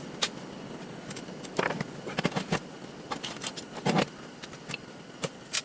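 Irregular clicks and light knocks of garage door opener parts being handled during a teardown, the loudest about four seconds in.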